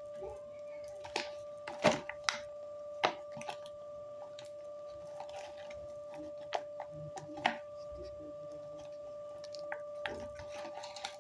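A small gift box and its packaging being handled and opened: scattered clicks and rustles, the loudest about two seconds in. A steady high-pitched tone runs under them.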